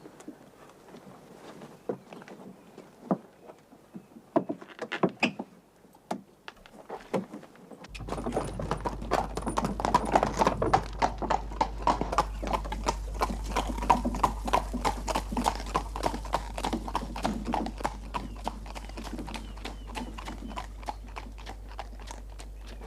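A horse's hooves clip-clopping as it draws a light trap. For the first eight seconds there are only scattered hoofbeats; then the hoofbeats turn louder, quicker and steady, with a low hum underneath.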